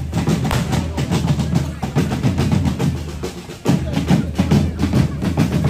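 Street drum band at a correfoc fire-run playing a fast, driving rhythm, with drum rolls, over the fizz and crackle of hand-held fireworks and crowd voices. The drums drop back briefly about three seconds in, then come back in loud.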